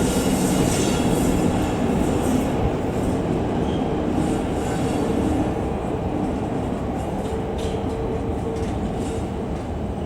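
Train rolling along the track, a steady rumble and wheel-on-rail noise that slowly fades as it draws away.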